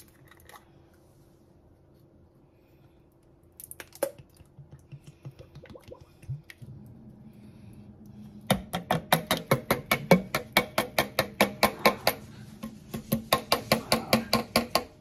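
Heavy cream glugging out of its container into a slow cooker: a fast, even run of glugs, about five a second, starting about eight seconds in with a short break in the middle.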